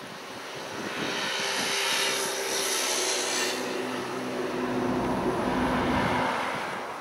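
A passing engine droning: a steady hum that swells over the first couple of seconds, stays loud, and begins to fade near the end.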